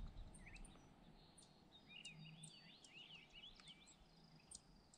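Faint birdsong: a quick run of warbling chirps about two seconds in, with a few short high calls scattered around it, over quiet natural background.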